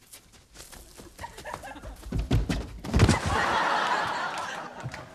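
A few knocks, then two heavy thumps about two and three seconds in, followed by a studio audience laughing for a second or two.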